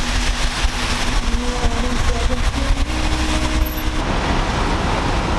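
Road noise and wind rumble from a moving car, heard from inside the cabin, steady and loud with a deep low rumble.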